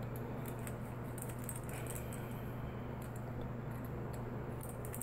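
Faint small clicks and scratching of a hex driver turning 2 mm cap screws into the back plate of a small nitro model engine, over a steady low hum.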